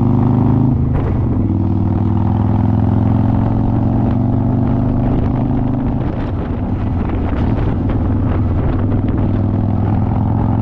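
Harley-Davidson motorcycle's V-twin engine running under way, its note shifting with speed about a second in and again past the middle. Through it runs a light rattle of clicks from something loose on the bike, which went unnoticed on the ride.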